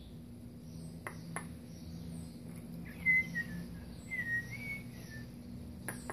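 Sabiá-coleira (white-necked thrush) giving a short run of chirps about halfway through, while adult and fledgling pass food beak to beak. Two sharp clicks come about a second in, and another near the end.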